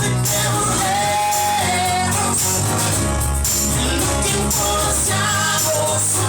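A live band playing a rock song, with a voice singing over it.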